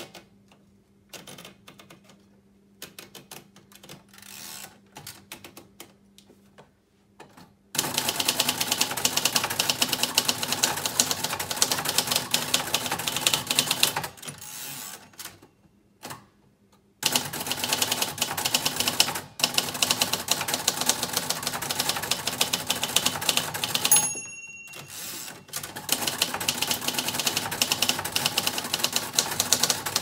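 1975 Royal Custom III manual typewriter. First come soft scattered clicks as the paper is fed in and the platen turned. Then fast typing, a dense rapid clatter of keys and typebars striking, broken by a pause of a few seconds. About three-quarters of the way through the margin bell rings once, and after a short break the typing starts again.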